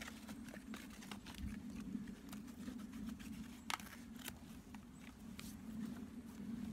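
Light, irregular clicks and taps of small camping gear being handled, with one sharper click about halfway through, over a steady low hum.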